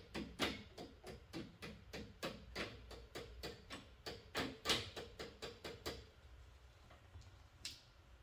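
Regular sharp clicking, about four clicks a second, which stops about six seconds in, followed by one more click near the end.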